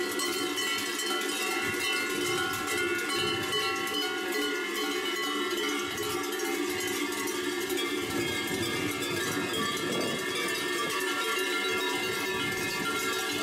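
Many large cowbells worn on the belts of kurent carnival costumes clanging continuously as a group of kurenti walk along, a dense, unbroken ringing of overlapping bell tones.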